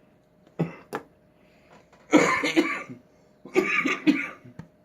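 A man coughing: two short coughs, then two longer bouts of harsh coughing.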